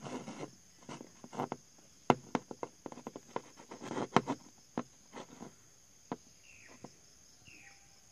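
Handling noise of a small quartz elephant figurine being moved about by fingers on a hard surface: irregular clicks, taps and short rustles, loudest about two seconds in and thinning out after about five and a half seconds. A steady high insect trill runs underneath, and two short falling chirps sound near the end.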